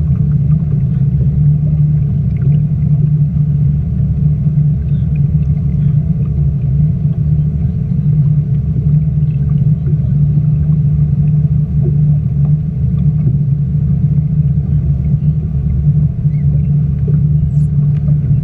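Speedboat engine running steadily, a deep continuous rumble with a low hum and no change in pitch.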